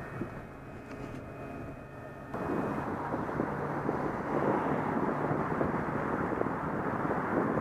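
Steady road noise and engine hum inside a moving car. About two seconds in it cuts suddenly to louder, uneven outdoor noise.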